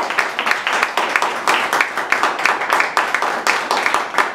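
Audience applauding: many hand claps in quick, irregular succession.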